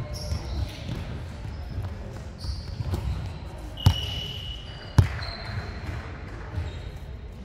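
A volleyball bounced twice on a hardwood court floor, two sharp thuds about a second apart, the first followed by a short high squeak. Faint voices and low hall rumble run underneath.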